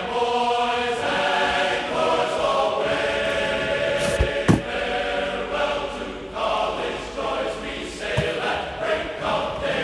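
Background music of choir-like chanting voices, with sharp knocks about four and a half seconds in and again about eight seconds in.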